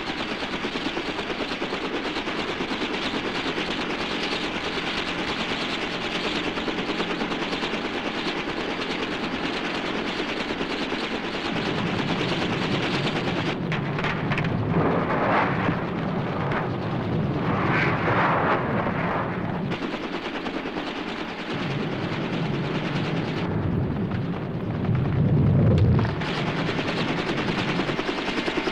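Film sound effects of the toppled Sidewinder being hauled up a pit slope on a helicopter's cable: a continuous dense rattling crackle with louder swells in the middle and a deep rumble near the end.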